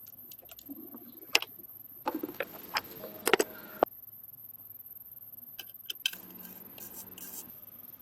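Irregular sharp clicks and knocks, as of hard objects handled and set down, bunched in the first half, followed by a few more clicks and a few seconds of rubbing or scraping.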